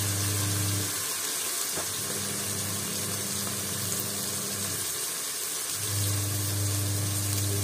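Onions and ginger-garlic paste sizzling in hot oil in an aluminium pot. A steady low hum runs under it, fading about a second in and coming back strongly about six seconds in.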